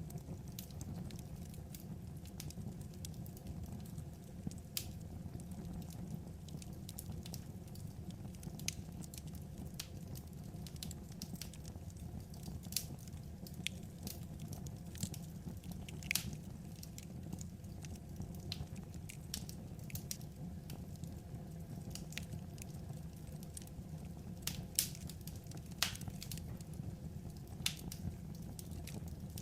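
Wood fire crackling: irregular sharp pops and snaps, a few louder ones, over a steady low rumble.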